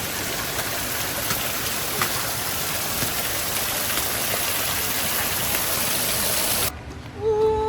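Steady rushing roar of a nearby waterfall, an even hiss of falling water. It cuts off suddenly near the end, and a short pitched sound follows, rising in pitch at the very end.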